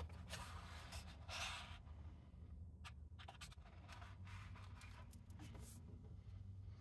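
Faint rustling and sliding of the paper pages of a hardcover picture book being handled and shut, with a few light clicks and taps from the book, over a low steady hum.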